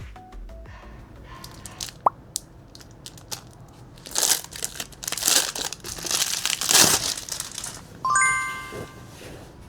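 Plastic packaging crinkling and crunching for about three seconds, over light background music with a bright chime near the end.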